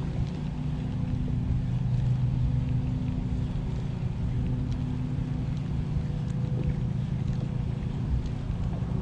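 Motorboat engine running steadily at low speed: an even hum over a low rumble.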